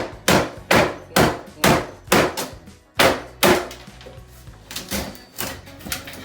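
Hammer blows knocking a bathroom vanity cabinet loose from the wall, about two sharp strikes a second. After about three and a half seconds they give way to lighter, irregular knocks.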